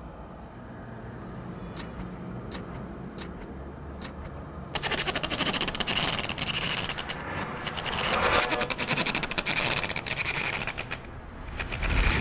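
Cartoon sound effect of a large sheet being peeled and torn off a wall: a long, rough, crackling ripping noise that starts about five seconds in, swells and then fades near the end. Before it there is only a low ambient hum with a few faint clicks.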